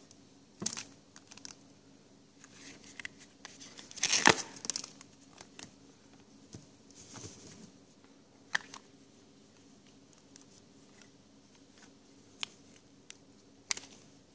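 Hard plastic phone cases, a belt-clip holster and their plastic bags being handled: scattered clicks and snaps with short bits of plastic crinkling. The loudest burst comes about four seconds in.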